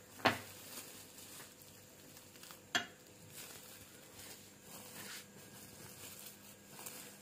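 Clear plastic sheet crinkling and rustling as hands fold and press soft cutlet mixture inside it, with two sharp light taps, one just after the start and one near the middle.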